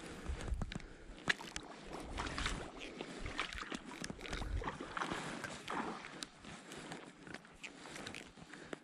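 Shallow water sloshing and lapping around a wading angler, with irregular swishes as fly line is stripped in and gathered by hand.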